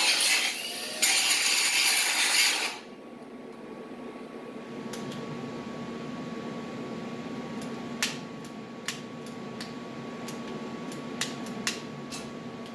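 Bauer angle grinder with a flap disc grinding metal, easing off briefly about half a second in and stopping a little under three seconds in. After it, a quieter steady hum with scattered sharp clicks.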